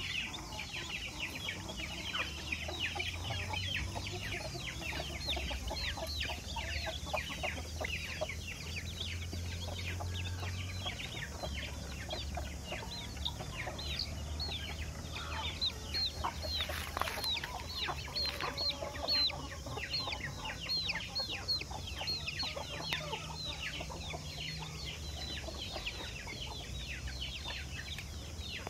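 Young Aseel and Erode chicks peeping continuously: many short, high, falling peeps overlapping from several birds at once.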